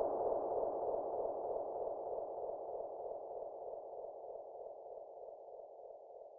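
A sustained ringing tone, wavering in a steady pulse, fading slowly away.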